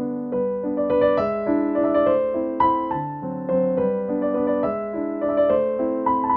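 Background music: a piano melody of struck notes, about two a second, each ringing out.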